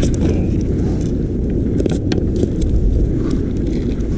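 Wind buffeting the microphone, a loud, rough, uneven rumble.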